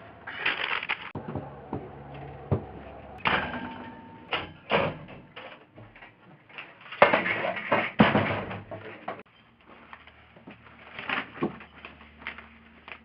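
Door sounds: a few sharp knocks and clicks, with scuffing and rustling movement in between.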